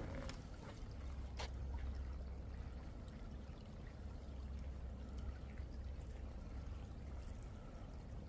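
Shallow creek running and trickling steadily over stones, with a couple of footsteps on a wooden footbridge in the first second or two.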